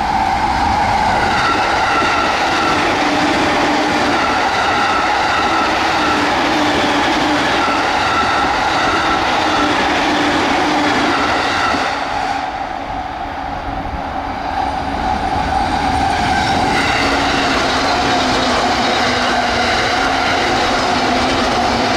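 JR East electric train running at speed on straight track: a steady rumble of wheels on rail with a constant hum. It eases off for a couple of seconds a little past halfway, then comes back up.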